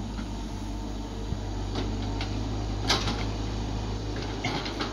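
Caterpillar 312 hydraulic excavator's diesel engine running steadily while the bucket digs and lifts soil. Several sharp knocks and clanks from the bucket and boom linkage break through it: the loudest comes about three seconds in, and a quick run of them comes near the end.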